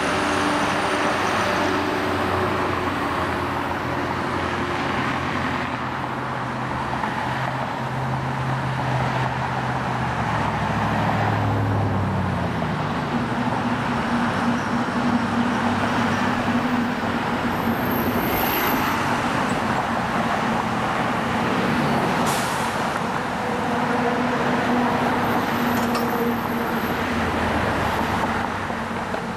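Road traffic in slow stop-and-go flow: cars and trucks idling and moving past. A heavy vehicle's engine hum is prominent at first, rising slightly in pitch and dropping away about twelve seconds in.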